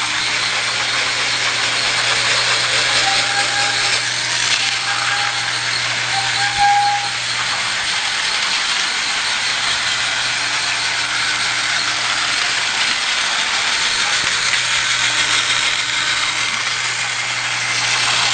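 Battery-powered TrackMaster toy train running on plastic track: a steady motor whir with a rattling clatter. Three short high squeaks come between about three and seven seconds in.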